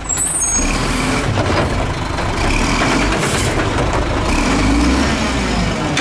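Diesel garbage truck running at the curb while its automated side-loader arm lifts a wheeled bin: a steady engine rumble with hydraulic and mechanical noise, and a short hiss about three seconds in.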